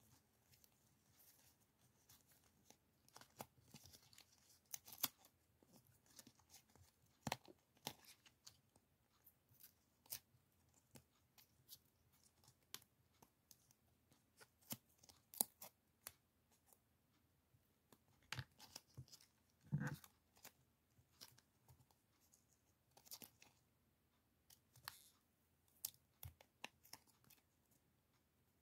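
Die-cut paper stickers being handled and peeled apart: faint, irregular crackling, tearing and clicking of paper, with one fuller rustle about two-thirds of the way through.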